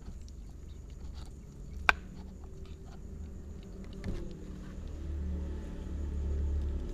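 Two kittens chewing and crunching on a piece of cooked fish, with many small wet clicks and ticks. A single sharp click about two seconds in, and a low rumble building in the second half.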